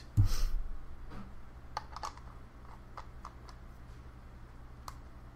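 Light, scattered clicks and taps of a rebuildable dripping atomizer being handled on an ohm meter to check its coil resistance (a 7-wrap twisted coil reading about half an ohm), after a soft thump at the start.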